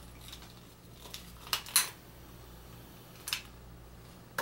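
A few short, sharp clicks of hard tools being handled at a bench, two close together about one and a half seconds in, the second the loudest, and another a little past three seconds, over a faint steady low hum.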